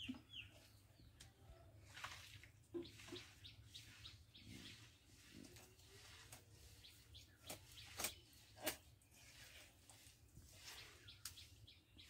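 Faint cutting sounds of meat being pressed and sliced on an upright floor-mounted blade (boti): soft scrapes and small clicks, with two sharper clicks about eight seconds in. Faint bird chirps can be heard in the background.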